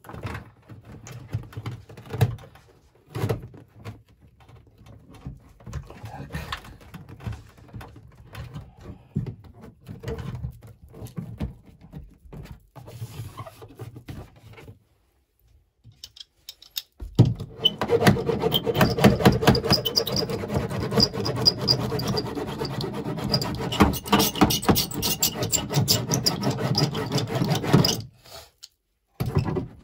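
Rubbing and scraping as foil-backed vibration-damping sheet (STP Aero) is pressed and rolled onto a car's rear fender panel. Scattered clicks and scrapes come first, then after a brief pause a long continuous stretch of squeaky rubbing that stops shortly before the end.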